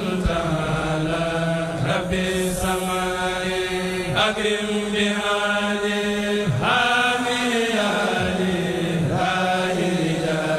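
A Mouride kourel, a group of male chanters, chanting a xassida in unison in long sung phrases over a steady low held note.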